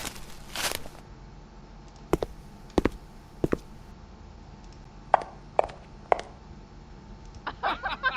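A string of short generated sound effects, one after another: a brief burst of noise near the start, three sharp knocks, three lighter clicks, and a quick squeaky chattering near the end.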